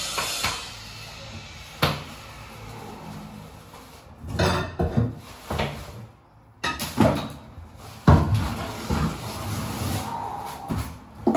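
Pry bar levering at ceramic wall tiles, giving irregular knocks and scrapes as the tiles are worked loose from the wall.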